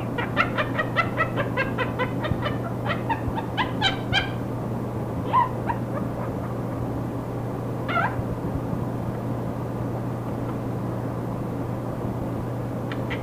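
Quaker parrot (monk parakeet) mimicking hysterical laughter: a fast run of short, high 'ha' syllables, about four or five a second, for the first four seconds. Two single calls follow, then a short burst near the end. A steady hum and static from the old recording run underneath.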